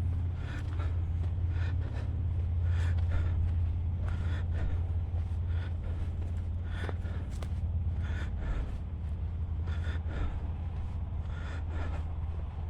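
Footsteps of a person walking along a woodland trail, a crunchy step roughly every second, over a steady low rumble.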